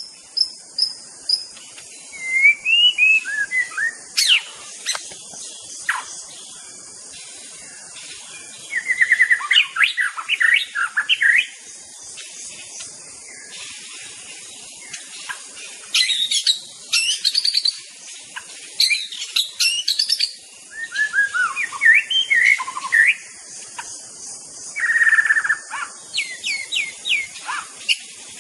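White-rumped shama (murai batu) singing varied phrases of whistles, trills and chirps in bursts with short pauses between, over a steady high hiss.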